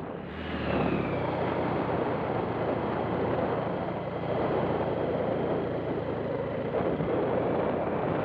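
Motorcycle riding along at a steady speed, its engine heard under a heavy, even rush of wind on the microphone.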